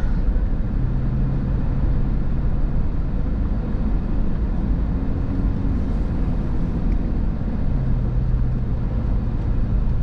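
Cabin noise of a car driving on a wet road: a steady low rumble of tyres and engine, with a faint hum that comes in about a second in and again near the end.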